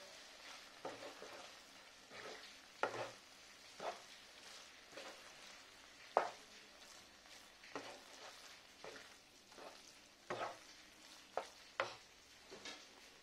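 Wooden spatula stirring and scraping thick egg keema masala in a non-stick frying pan, with short strokes against the pan about once a second, the loudest about six seconds in, over a faint frying sizzle.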